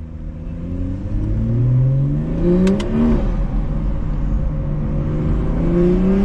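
BMW 340i's turbocharged inline-six on an AWE track exhaust, accelerating: the engine note climbs for about three seconds, drops sharply at a gearchange, then climbs again near the end. There are short sharp crackles at each peak.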